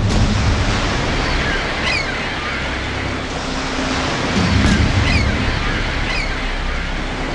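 Sea surf: waves washing and breaking in a steady rush of noise. Several short, high calls falling in pitch sound over it.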